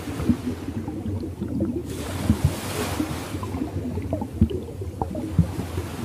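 Ocean waves washing in, with a hiss that swells and fades every couple of seconds over a constant low bubbling churn.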